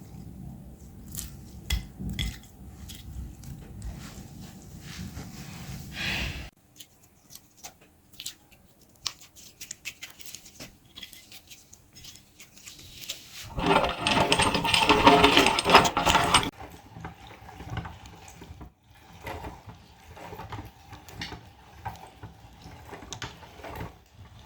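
Meat grinder working slime through, with metal clicks and scraping and a wet churning. The sound changes abruptly in cut segments and is loudest for about three seconds past the middle.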